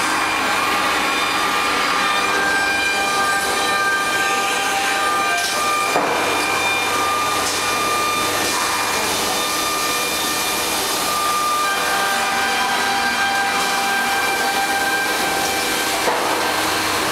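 HOMAG CNC woodworking machining center running: a steady machine noise with several whining tones that change pitch every few seconds over a low hum, and one short click about six seconds in.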